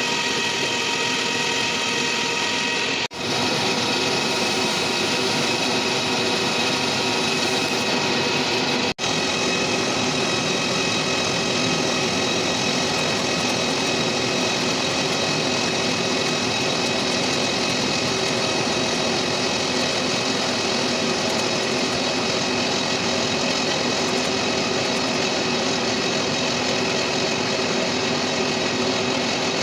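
Machine tool running steadily while machining a crane bearing flange: a dense, even mechanical noise with several steady tones through it. It cuts out for an instant twice in the first ten seconds.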